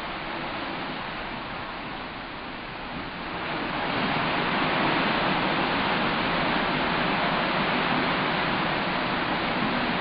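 Steady rushing of sea water and wind along the side of a moving ship, growing louder about three and a half seconds in.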